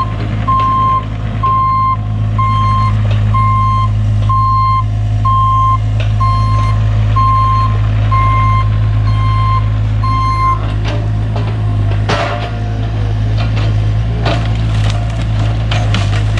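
Diesel machinery running steadily while a backup alarm beeps about once a second, the beeping stopping roughly ten seconds in. After that comes a run of cracks and knocks of wood being broken and crushed.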